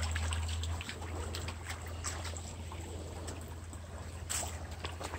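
Shallow brook trickling over stones, with a steady low rumble underneath and a sharp tap about four seconds in.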